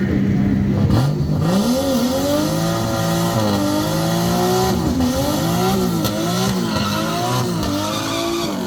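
Turbocharged RB30 straight-six in a VN Commodore revving hard: a steady note for about a second, then a sharp climb, then the revs rising and falling over and over.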